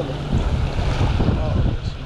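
Wind buffeting the microphone in a heavy low rumble, over small waves washing onto a sandy shore.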